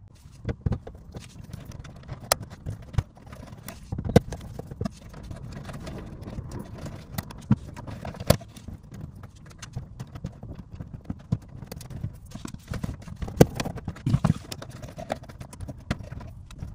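Irregular clicks, taps and rustling of hands working at a screw terminal block inside a laser cutter's cabinet, loosening the terminal screws and pulling out the exhaust fan's red and black power wires.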